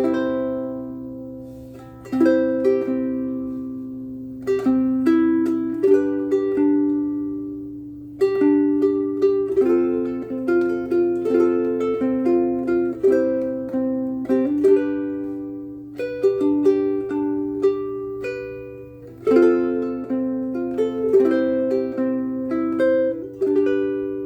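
Ko'olau KC-10 ukulele with aNueNue Clearwater strings played solo: plucked chords and single melody notes, each left to ring out and fade before the next phrase.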